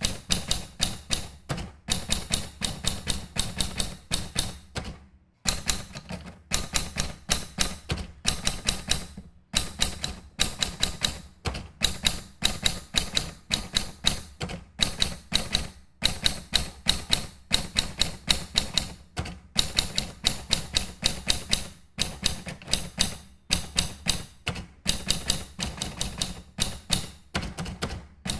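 Typewriter being typed on: keys strike in quick runs of several clacks a second, broken now and then by brief pauses.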